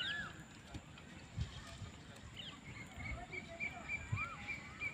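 Birds chirping and calling: short curved whistled notes, then a quick run of about seven short repeated chirps in the second half. A few low thumps sound underneath.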